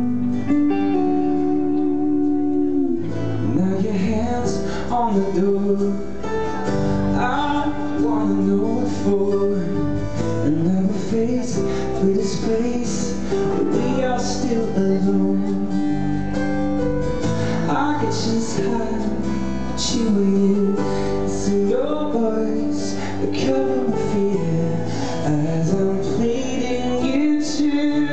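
Live pop-rock band playing a song: guitar and keyboard chords, with the drums and the rest of the band coming in about three seconds in, and a male singer singing over them.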